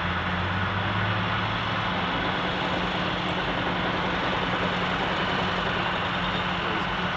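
A crane's engine running steadily under load as it hoists on its chains, a constant low hum over a wash of site noise.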